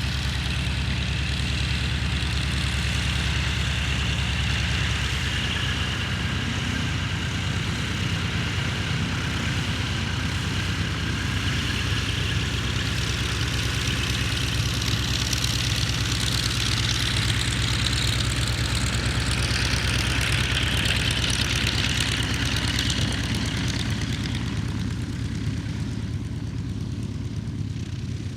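Piston engine of a Second World War fighter running steadily at low power, its propeller turning, a deep even drone with a higher hiss over it; it eases off slightly near the end.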